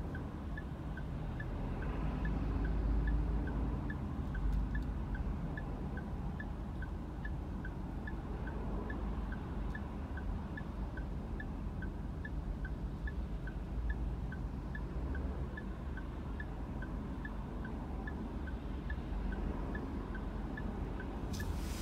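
Low, steady rumble of a car idling in traffic, heard from inside the cabin, with a light, even ticking about twice a second.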